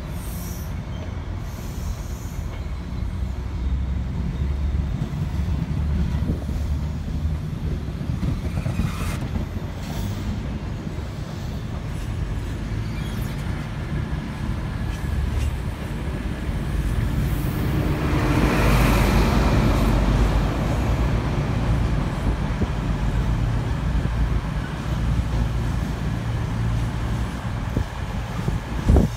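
British Rail HST (InterCity 125) diesel train departing, its Mark 3 coaches rolling past with a steady low rumble of wheels on rail. A louder swell builds to a peak about two-thirds of the way through as the rear power car passes, then eases off as the train draws away.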